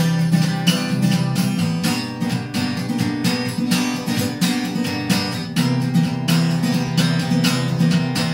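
Acoustic guitar strummed in a steady rhythm, chords ringing under evenly spaced strokes.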